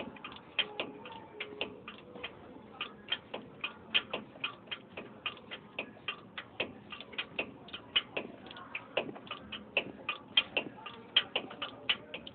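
Hand ratchet clicking rapidly, about four to five clicks a second, as a truck's leaf-spring bolt is worked loose.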